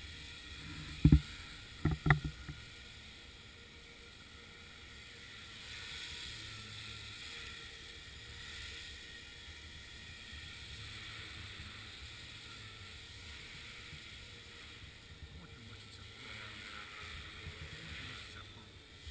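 Radio-controlled model helicopter flying aerobatics, its rotor and motor giving a steady whir that swells and fades. Two loud thumps about one and two seconds in.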